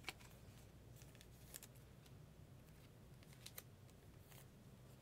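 Near silence: room tone with a few faint clicks as trading cards are handled.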